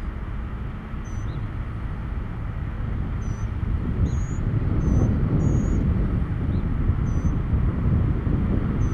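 Road traffic rumbling, swelling louder about halfway through, with short high-pitched chirps repeating every second or so.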